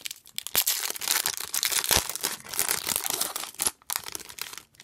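Foil wrapper of a hockey card pack being torn open and crinkled in the hands: a dense, fairly loud crackle of many sharp clicks that fades out near the end.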